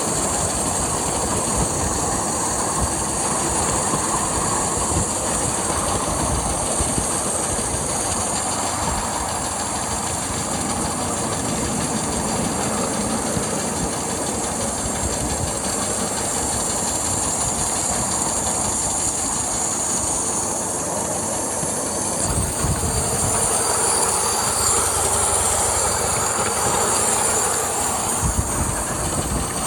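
A 7¼-inch gauge Quarry Hunslet live-steam locomotive running under steam, heard from the footplate: continuous running and exhaust noise with a steady steam hiss from a slightly leaking left-hand drain cock. It gets a little louder about three-quarters of the way through.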